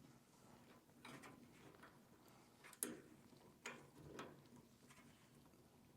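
Near silence with a few faint clicks and knocks, the sharpest about three seconds in: hands handling parts inside an opened dryer during a belt replacement.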